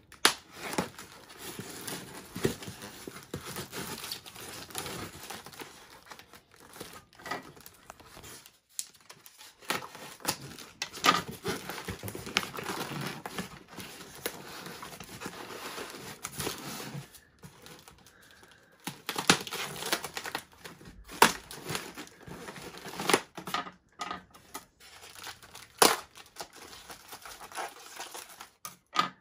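Packing tape being cut and pulled off a foam shipping box with a knife and scissors: irregular scratching, tearing and crinkling with sharp clicks, pausing briefly twice.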